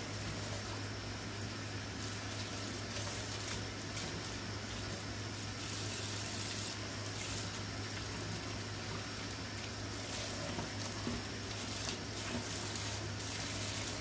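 Kitchen faucet running steadily into a stainless steel sink while lettuce leaves are rinsed by hand in a colander, the water splashing over the leaves.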